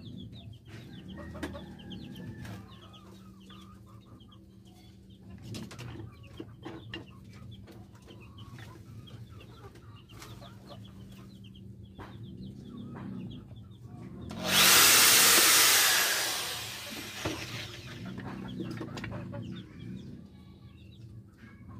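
Chickens clucking on and off. Partway through, a power tool runs loudly for about two seconds and then winds down with a falling whine.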